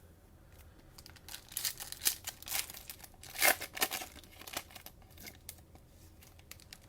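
Cellophane wrapper of a Panini Mosaic basketball card pack crinkling and tearing as it is opened by hand, a rapid run of crackles from about one second in to about five seconds in.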